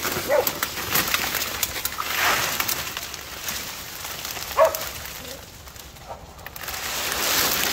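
Saw palmetto fronds scraping and rustling against a dog-worn camera as the dog pushes through the scrub, with two short high whines, one about half a second in and a louder one near five seconds.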